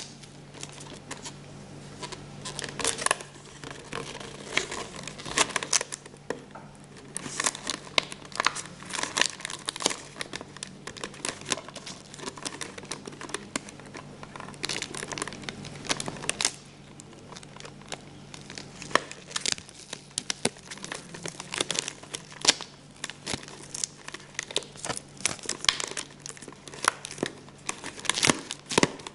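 Clear sellotape crinkling and crackling as it is handled, folded and pinched around a firework fuse to waterproof it: many short, irregular crackles in clusters, with a quieter spell about two thirds of the way through.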